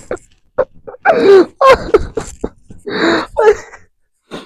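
A young man laughing hard and breathlessly: short gasping catches, then high-pitched, wavering, squealing bursts of laughter, loudest about a second in and again about three seconds in.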